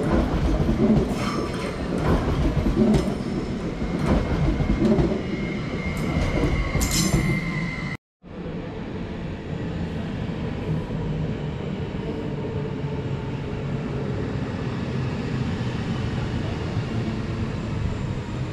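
A train passing through the station, its wheels clicking over rail joints about once a second, with a brief high wheel squeal about seven seconds in. After a sudden cut, a steady train rumble with a faint whine.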